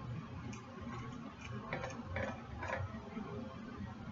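Scissors cutting through sequined fabric: a handful of short, sharp snips, bunched together about halfway through.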